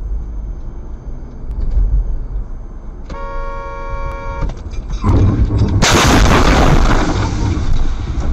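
Car driving with a steady road rumble, then a car horn sounds for about a second and a half. About two seconds later comes a loud crash as the car hits the side of a crossing tractor-trailer, with the windshield glass shattering.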